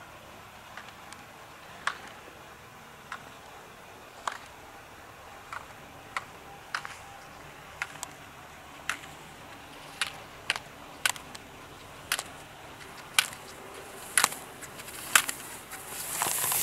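Slalom gate poles struck by a skier running the course: a sharp clack at each turn, about once a second, growing louder as the skier comes closer. Skis scrape on the snow near the end.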